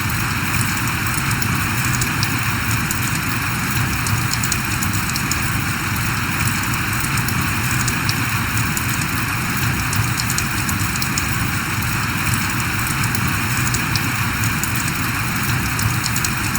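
Steady rain falling, with many small drops pattering in a continuous even hiss.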